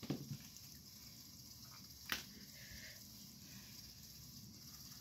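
Clicks of plastic Bianyo marker caps and markers being handled: a few soft clicks at the start and one sharp click about two seconds in, over faint room hiss.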